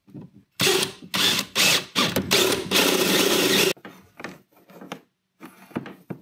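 Cordless drill boring a hole through a kayak's plastic hull: a few short bursts on the trigger, then a steady run that stops suddenly about four seconds in. Afterwards come light clicks and rustles as the wire is handled.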